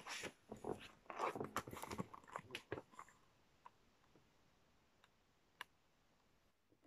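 A hardback picture book handled and turned toward the camera, with a string of faint rustles and small clicks for about three seconds, then near silence broken by two or three faint ticks.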